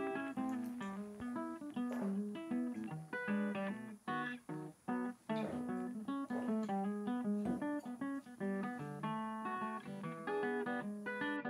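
Background music: a plucked acoustic guitar tune of quick, short notes.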